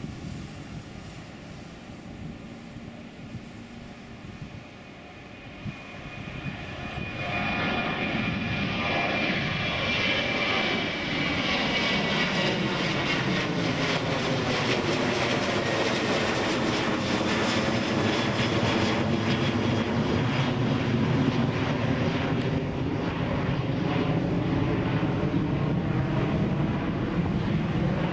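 Boeing 737 jetliner's twin jet engines at takeoff power as it climbs out. A distant rumble swells loudly about seven seconds in as the jet passes overhead, with a high whine falling in pitch. Steady loud jet noise follows as it flies away.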